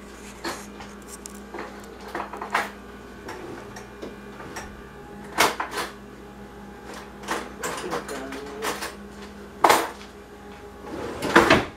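Kitchen clatter: scattered knocks and clinks of pots, a pan lid and utensils being handled on a gas stove, over a low steady hum.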